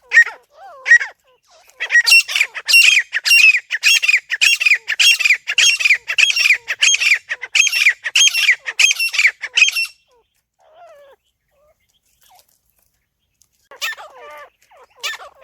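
Francolin (teetar) calling: a fast run of loud, shrill repeated calls, about two a second, that breaks off about ten seconds in. After a few mostly quiet seconds the calls start again near the end.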